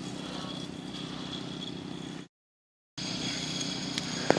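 A steady low mechanical hum with a faint high whine. It cuts to silence for under a second about two seconds in, then resumes, with a sharp click near the end.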